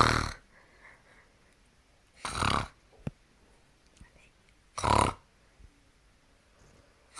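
A person snoring loudly: three short, harsh snores about two and a half seconds apart.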